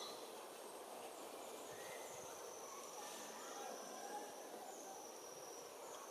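Small wild birds calling: a few thin, high-pitched calls scattered over a steady hum of outdoor background noise.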